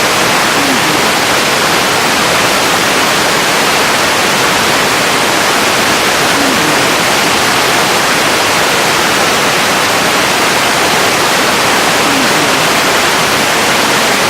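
Loud, steady electronic static hiss, a dense even rush of noise like a radio or television tuned off-station. Three faint, brief low tones surface in it about six seconds apart.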